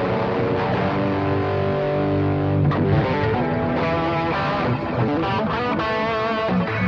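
ESP LTD H-401QM electric guitar with DiMarzio Titan humbuckers, played with distortion through a Boss ME-80 and a delay. Low notes are held for about three seconds, then it moves into a run of quicker single notes.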